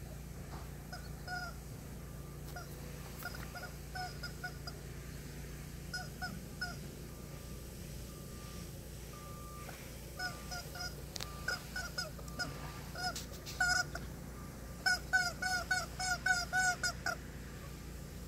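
A rubber chicken squeak toy squeaking in short squeaks as a horse mouths and chews it. The squeaks come scattered at first, then in quick runs that are loudest near the end.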